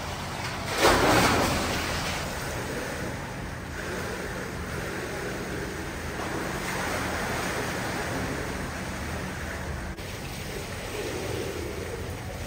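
Steady rushing water, with a loud splash about a second in.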